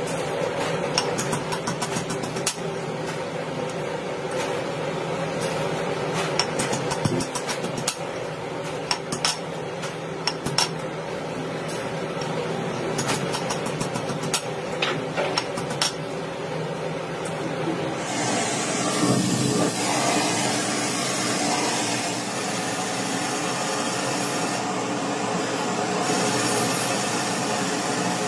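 Workshop machine running with a steady hum while metal parts are worked, giving many short clicks and taps. About eighteen seconds in, the clicking stops and a loud steady hiss takes over.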